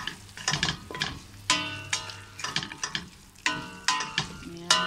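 Wooden spatula stirring beef and chopped cilantro in a large stainless steel pot, knocking repeatedly against the pot so that it rings after several strokes. Frying sizzle runs underneath.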